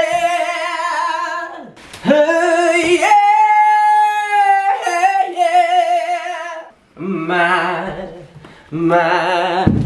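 A person singing loudly a cappella in a high voice, with vibrato on long held notes. One high note is held for a second and a half about three seconds in. In the last few seconds the notes drop lower.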